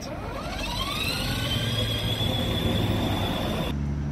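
Electric drive motor and gearbox of a Nissan GT-R-styled children's ride-on toy car, whining up in pitch as the car pulls away and then holding a steady high whine. Near the end the whine cuts off and a steady low hum takes over.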